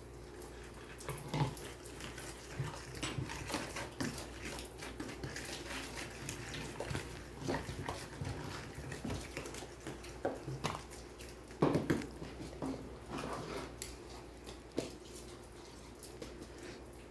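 Metal spoon scraping and knocking against a plastic mixing bowl as sugar, margarine and eggs are stirred together by hand into a cream, in irregular short scrapes and taps over a low steady hum.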